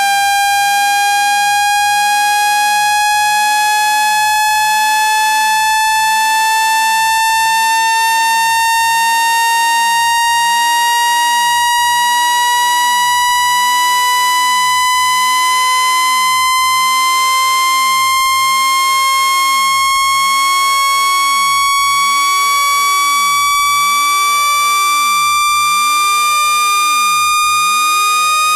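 Synthetic water-eject tone for clearing water from a speaker: one steady, buzzy electronic tone gliding slowly and evenly upward in pitch.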